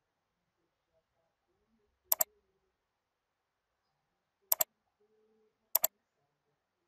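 Computer mouse button clicking: three quick pairs of clicks, the first about two seconds in and the last two about a second apart.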